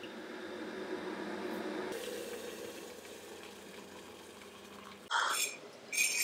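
Hot water running from an electric kettle into a mug, fading out after about five seconds. A few sharp clinks follow near the end.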